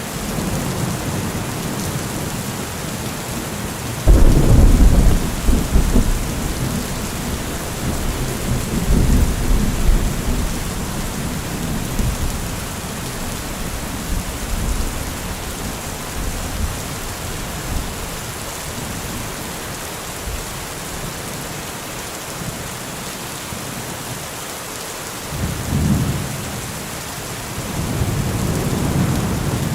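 Thunderstorm: steady heavy rain with rolling thunder. A sudden loud clap about four seconds in rumbles on and fades over several seconds, and further rumbles come near the end.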